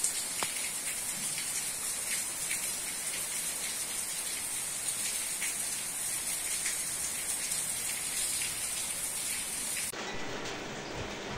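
Heavy rain pouring steadily, a dense hiss with scattered drops tapping close by. About ten seconds in it cuts abruptly to a different, fainter and lower noise.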